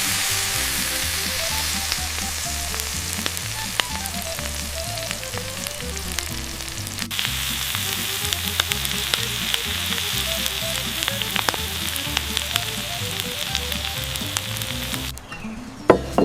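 Food sizzling and crackling steadily on a hot charcoal grill, with the sizzle changing in tone about halfway through and stopping shortly before the end. Soft background music plays underneath.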